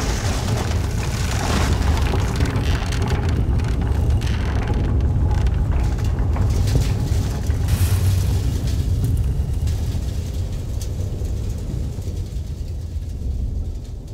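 A deep, steady low rumble with scattered crackles over it, fading over the last few seconds.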